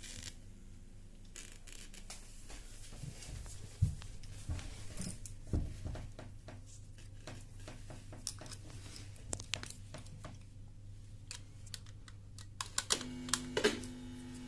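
Speaker fed by a loose, unshielded mini-jack cable giving a steady low mains hum with scattered clicks and crackles as the jack is handled. About thirteen seconds in, the hum gets louder and richer as the jack is touched: this is mains hum picked up through the body, which the demonstrator calls static electricity from the finger.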